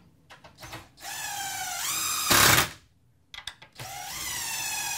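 DeWalt cordless impact driver driving long wood screws into a wooden planter's top rails: twice, the motor whine rises in pitch, then a louder rattling burst as the impact mechanism hammers the screw home and countersinks it. A few small clicks come before the first run.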